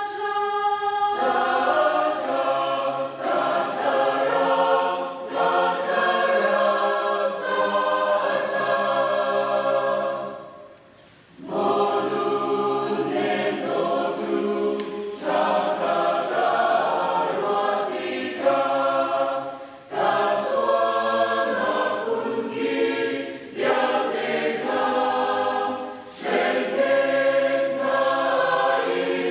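Mixed church choir of women and men singing together in long phrases, with a short pause about a third of the way through.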